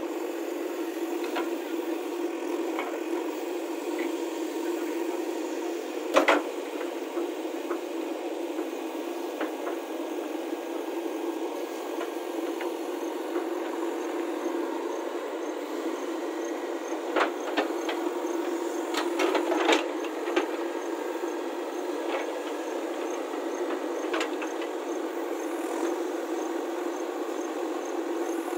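JCB backhoe loader running steadily while its bucket digs earth and stones. Sharp knocks of rock against the bucket come about six seconds in, again in a quick cluster about two-thirds of the way through, and once more near the end.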